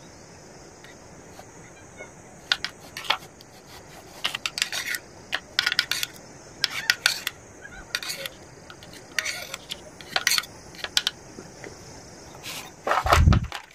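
A spoon and knife clicking and scraping on a wooden cutting board as chopped tomatoes are gathered into a small plastic bowl: irregular sharp taps. A heavier low thump comes near the end as the burner on the gas cylinder is handled.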